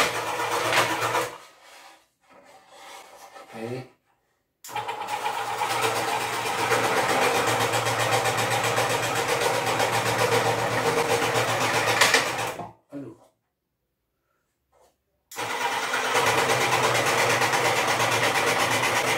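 Electric benchtop scroll saw running and cutting wood, a steady, even buzz of the reciprocating blade. It starts about five seconds in, drops out completely for about two seconds past the middle, then runs again.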